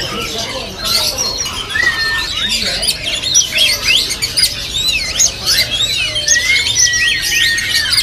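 Many caged songbirds of mixed species chirping and whistling at once in a dense, overlapping chorus. One long, steady whistle stands out near the end.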